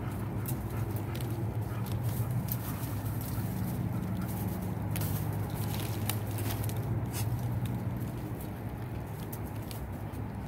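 Light, irregular crackling of dry leaves and twigs under a dog's paws as it walks and sniffs through leaf litter, over a steady low hum.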